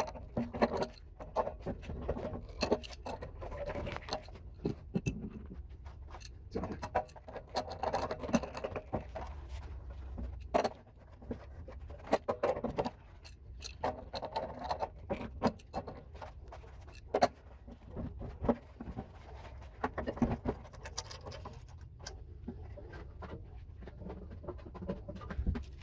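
Irregular metal clicks, taps and scrapes of a wrench and hand work on a water heater as the old temperature and pressure relief valve is turned and unscrewed from the tank.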